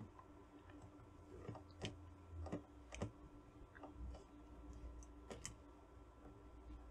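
Faint, irregular small clicks and ticks, about ten of them, as a soldering iron tip works a solder joint on a circuit board, over a faint steady hum.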